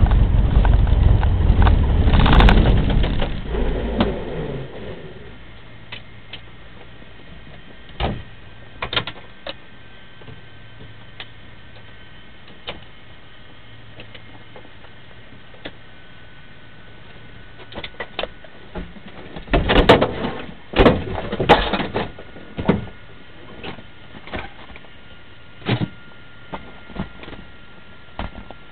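Cessna 150's engine running, then dying away and stopping within the first few seconds. After that the cabin is quiet apart from a faint steady hum and scattered clicks and knocks, with a cluster of knocks about twenty seconds in.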